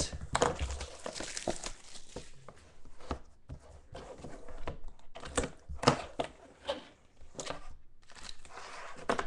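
Clear plastic shrink wrap being torn and stripped off a trading card box by hand: irregular crinkling and crackling of the plastic, with a few sharper clicks as the box is handled.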